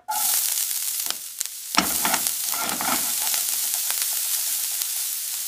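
Diced onions sizzling in a hot stainless-steel frying pan: a dense hissing sizzle that starts at once, dips briefly and picks up again just under two seconds in, with a few crackles. The sound is AI-generated by Google's Veo 3 video model from the audio prompt "distinct sizzle".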